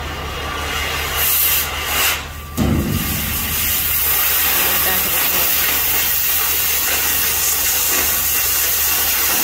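Oxy-fuel cutting torch hissing steadily as it cuts through the corrugated steel wall of a shipping container, with a brief break and a short low thump about two and a half seconds in.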